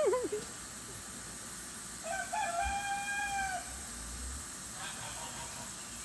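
A rooster crowing once, about two seconds in: one call lasting about a second and a half, with a short rising start and then a held level note.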